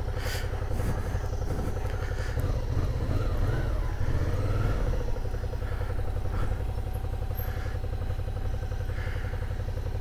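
Suzuki V-Strom 650's 645 cc V-twin engine idling steadily.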